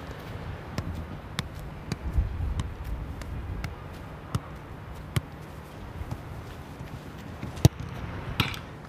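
A football being kept up with the feet: sharp ball touches about every half second, then fewer, and one louder strike of the ball near the end.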